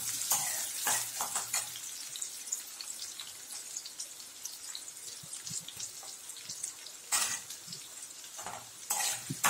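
Shallots frying in hot oil in a metal kadai: a steady sizzle and crackle, with a metal ladle scraping the pan as it stirs during the first second and a half, again about seven seconds in, and near the end.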